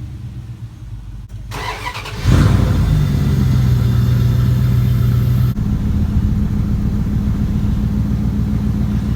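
Pickup truck's 5.3 V8 engine running steadily. It gets much louder about two seconds in, and its tone shifts abruptly to a higher steady pitch about five and a half seconds in.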